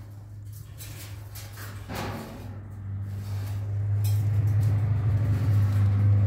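A low steady hum that grows louder from about three seconds in, with a brief knock about two seconds in.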